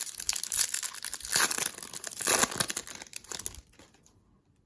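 A trading-card pack wrapper being torn open and crinkled by hand: dense crackling that stops about three and a half seconds in.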